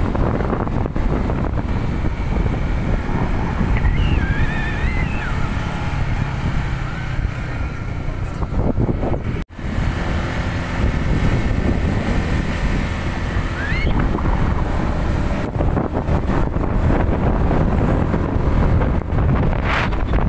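Wind buffeting the microphone of a riding motorcyclist, over the steady running of the motorbike's engine and road noise. The sound cuts out for an instant about halfway through.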